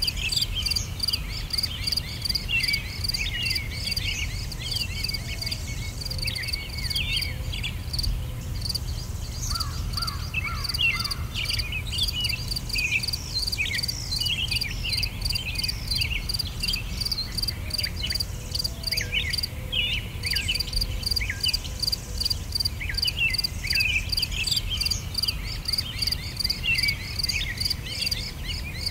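Outdoor nature ambience: insects chirping in a fast, even pulse, with birds giving many short, falling chirps over them and a low rumble underneath.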